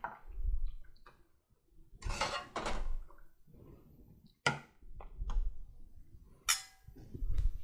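A metal serving spoon scraping a cooking pot and knocking against a glass serving dish as thick curry is spooned out, with a few sharp clinks and dull thuds.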